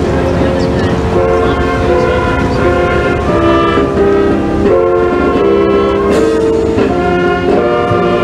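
Church organ music: loud sustained chords that change every half second to a second.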